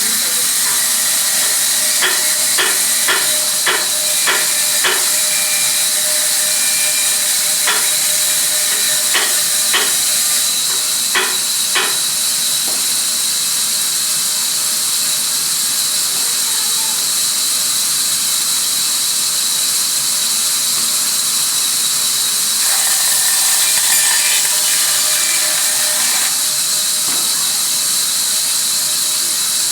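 Sawmill machinery running with a loud, steady high hiss. A series of sharp knocks comes in two clusters, about two to five seconds in and again around eight to twelve seconds in.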